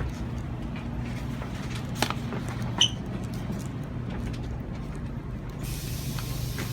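Steady low rumble and hum of a Shinkansen bullet train, broken by two sharp clicks about two and three seconds in. A hiss comes in near the end.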